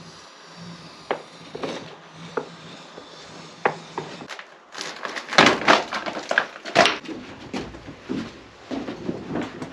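Wooden knocks and clatter in a small room: a few separate knocks, then a quick run of loud clattering about halfway through, then scattered knocks.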